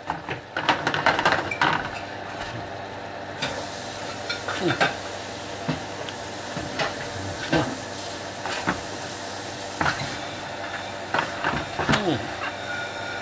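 Eggs frying in bubbling butter in a pan, sizzling steadily, while a spatula scrapes and knocks against the pan many times.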